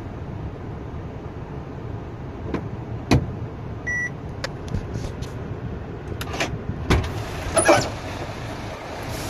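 Mercedes-Benz Actros truck's diesel engine idling, heard from inside the cab as a steady low rumble. A short dashboard warning beep sounds about four seconds in, and several sharp clicks and knocks come in the second half.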